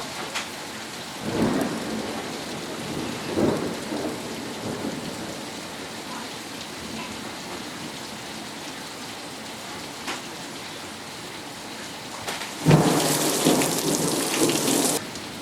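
Steady rain falling during a thunderstorm, with thunder rumbling in short swells. About thirteen seconds in, a louder thunderclap runs for about two seconds and stops suddenly.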